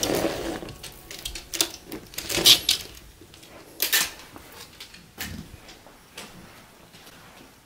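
Scattered sharp clicks and knocks with light rustling, as of things being handled indoors, loudest about two and a half and four seconds in, then thinning to a few faint knocks.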